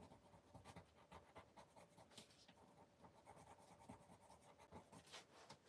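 Faint dabbing and scratching of a fine painting tool on paper: many small, irregular strokes in quick succession over near-silent room tone.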